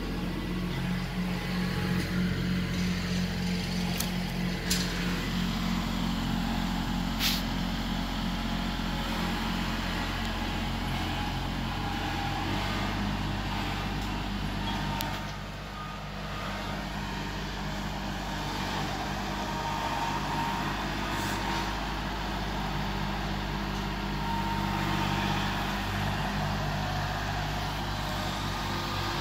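Kubota L3901 tractor's three-cylinder diesel engine running while it works, its engine note shifting a couple of times, with a few sharp knocks in the first several seconds.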